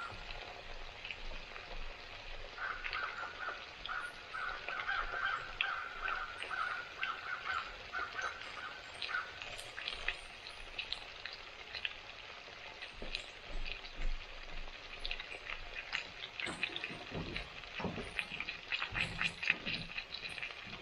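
Chicken frying in hot sunflower oil, a steady crackling sizzle, with crows cawing in the background.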